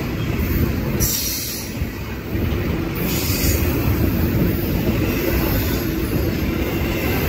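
Double-stack intermodal freight train passing at speed: a steady rumble and clatter of well-car wheels on the rails, with a brief high hiss about a second in and again around three seconds in.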